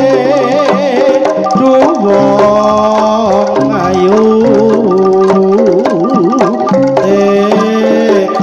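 Javanese jaranan accompaniment played loud through a large PA system: hand-drum (kendang) strokes keep a busy rhythm under a wavering melodic line and sustained ringing gamelan tones.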